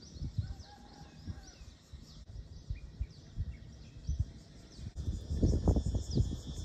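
Birds chirping outdoors, with many short, quick calls throughout. From about five seconds in, loud close rustling and knocking as a dog comes right up against the camera.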